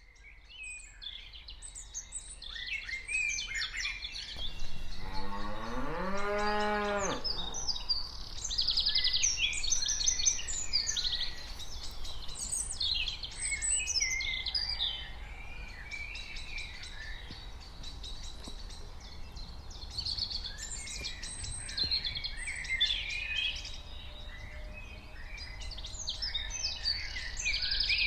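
A cow moos once, a long call of about three seconds, rising then falling in pitch, about five seconds in. Small birds chirp and sing throughout, over a low steady background rumble.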